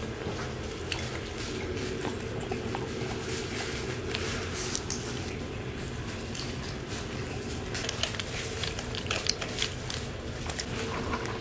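Shih Tzu puppies eating and chewing: many small, irregular clicks and crunches of teeth on dry kibble, a toy and a metal water-bottle spout, over a steady hum.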